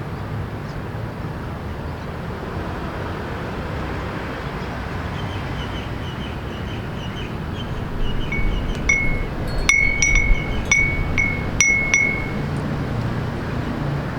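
Small wind chime ringing in the breeze: a few soft tinkles, then a cluster of louder, bright strikes about eight to twelve seconds in. Under it runs a steady low hum of city traffic.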